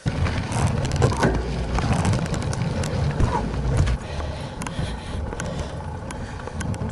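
Trek 920 gravel bike rolling over a rutted dirt trail, heard through a handlebar-mounted camera: a low rumble with frequent sharp rattles and clicks over the bumps. It gets a little quieter about four seconds in.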